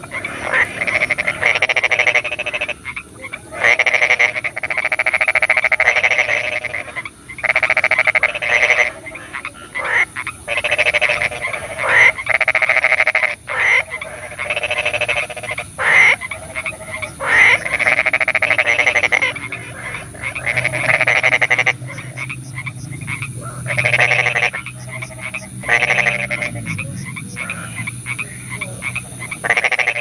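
A chorus of frogs croaking in rapid, pulsing bouts of a second or two each. The bouts follow one another with short breaks, over a steady high-pitched background hiss.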